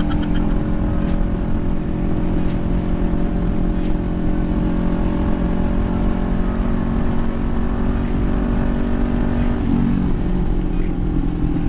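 Kawasaki Ninja 400 parallel-twin engine running at a steady cruise under low wind rush, as heard from a helmet camera. The engine note changes briefly about ten seconds in, then settles again.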